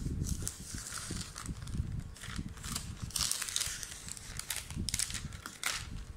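Clear plastic protective sleeve crinkling and rustling as it is pulled off a tablet, with irregular crackles, a denser rustle about three seconds in, and soft knocks of the tablet being handled on the table.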